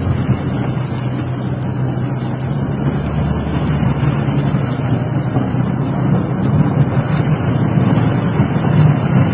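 Steady rumble of a car driving on a wet road, heard inside the cabin, with a few faint ticks along the way.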